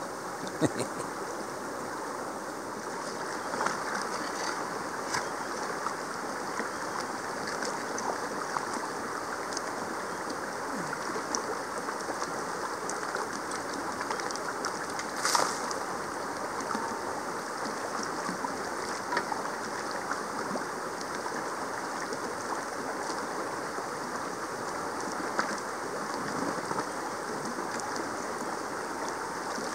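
Creek water running steadily, with scattered small clicks and splashes and one louder knock about halfway through.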